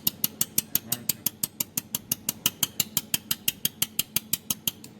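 Pulsed laser spot welder firing repeatedly at a pulse frequency of about 5 to 6 per second. Each pulse is a sharp tick, in an even rhythm over a low steady hum, and the ticks stop near the end.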